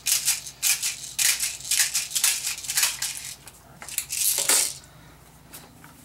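Airsoft BB speed loader being pumped to push plastic BBs into a shotgun shell: an uneven run of quick plastic clicks and rattling BBs, ending with a longer rattle about four and a half seconds in.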